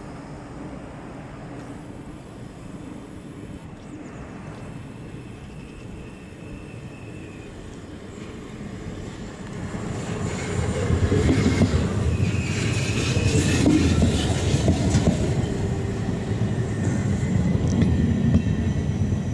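NS Koploper (ICM) electric intercity train. A low rumble at first, then about ten seconds in a train passes close at speed, its wheels and carriages running loudly over the rails with a brief high squeal.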